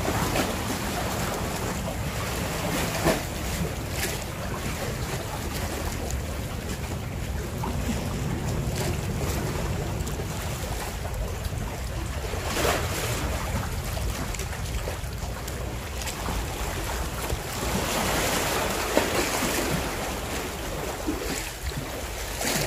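Wind buffeting the microphone as a steady low rumble, over the wash of sea waves against the concrete tetrapods of a breakwater, with a few short sharp sounds scattered through.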